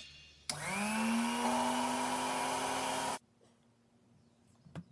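Small bench drill press starting up, its pitch rising briefly before it runs steadily, drilling a treenail hole through a wooden frame joint. It cuts off suddenly about three seconds in, and a light click follows near the end.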